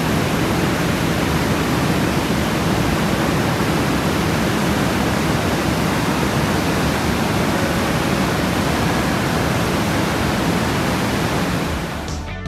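Torrent water rushing and churning through a narrow rock gorge, a loud, steady rush that fades out near the end.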